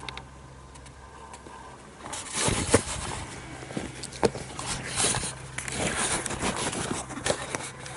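Handling noise as the camera is picked up and moved: cloth rubbing against the microphone with sharp knocks and clicks, starting about two seconds in after a low steady hum.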